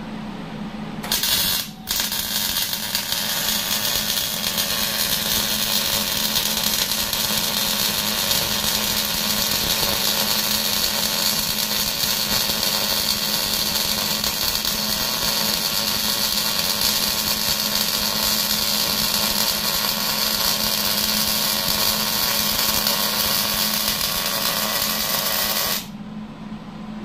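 Wire-feed welder laying a long bead on thick steel: the arc's steady crackling sizzle starts about a second in, breaks off for a moment, then runs unbroken for about 24 seconds before stopping.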